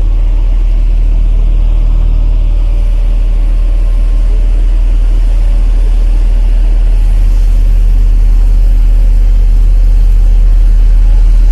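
Hamm 311 vibratory roller's Cummins four-cylinder diesel running steadily as the roller works, a loud low drone that grows a little louder toward the end.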